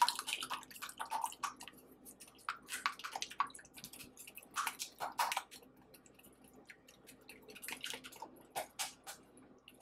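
A wire whisk beating eggs, heavy cream and spices in a glass bowl: quick, irregular wet splashing and clicking as the whisk churns the liquid.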